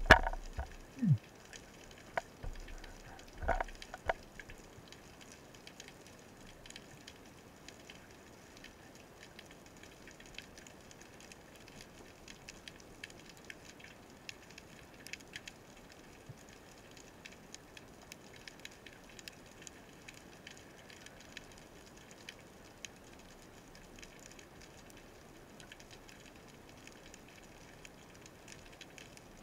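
Faint, steady crackling and fine clicking of underwater reef ambience, heard through a diving camera's housing, with a few louder knocks in the first four seconds.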